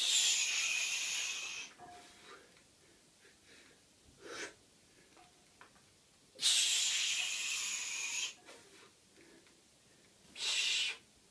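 A person breathing hard: long, forceful, hissing breaths, two of about two seconds each, a short one between them and a shorter one near the end.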